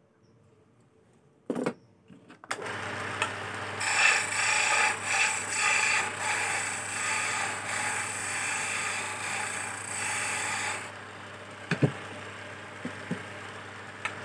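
A knock, then a homemade wood lathe's motor starts and runs with a steady hum. A hand chisel scrapes and cuts the spinning teak chess piece for several seconds, then lifts off while the lathe keeps running.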